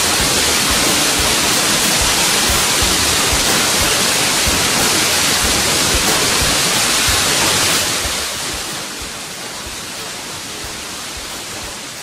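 Small waterfall pouring down a rocky cleft between boulders: a steady, dense rush of falling water. It becomes quieter about eight seconds in.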